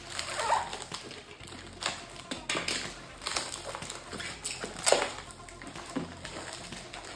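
Clear plastic wrap crinkling and tearing as it is pulled off a cardboard box by hand, in irregular rustling bursts, with the loudest crackle about five seconds in.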